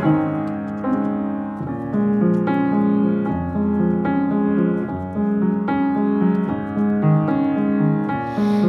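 Upright piano playing a solo passage of chords, each struck and left to ring, with a new chord about every second.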